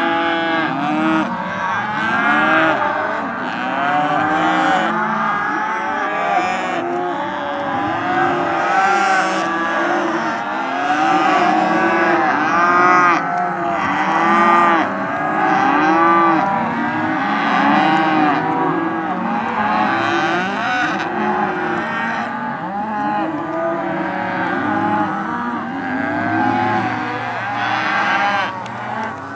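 A large herd of Hereford calves bawling at weaning: a continuous chorus of many overlapping moos.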